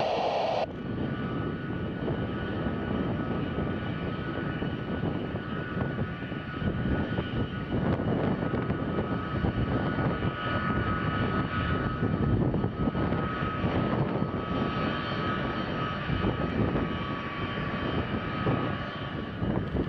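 Boeing C-17 Globemaster III's four Pratt & Whitney F117 turbofan engines at low taxi power as the aircraft rolls slowly past: a steady jet whine over a low rumble.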